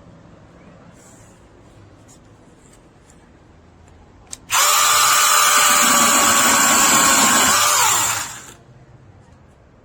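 Battery-powered 6-inch brushless mini chainsaw: a click, then the motor and chain run at a steady high whine for about four seconds before spinning down.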